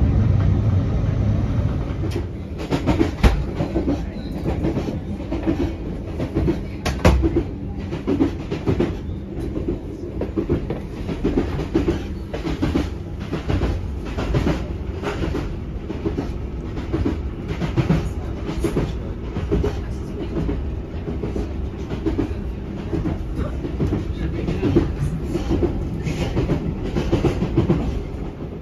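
Ride noise inside a moving Class 321 electric multiple unit: a steady rumble from the running gear, with frequent irregular knocks and rattles as the carriage rides over the track. The sharpest jolts come about three and seven seconds in.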